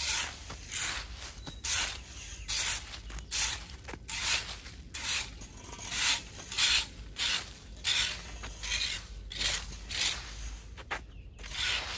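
Dry fallen leaves being swept with a short-handled hand brush over pavement and a storm-drain grate: repeated rustling, scraping strokes, about two a second, with a short pause near the end.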